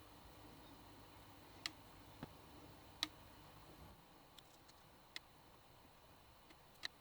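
A handful of light, sharp clicks and taps from small hardware parts being handled, spread unevenly over near-silent room tone; the loudest comes about three seconds in.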